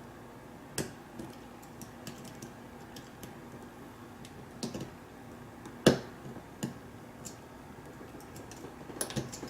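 Flathead screwdriver prying and scraping at a half-moon retaining clip on the back of a lock cylinder: scattered small metal clicks and ticks, with the sharpest snap about six seconds in.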